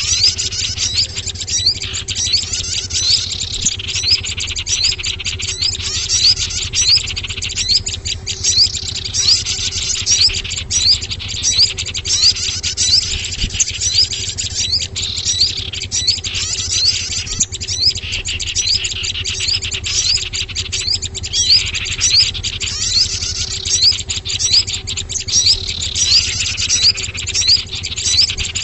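Bird-lure (pikat) recording of many kinds of small songbirds calling at once: a dense, unbroken chatter of short high chirps and quick rising notes, meant to draw small birds in. A steady low hum lies under it.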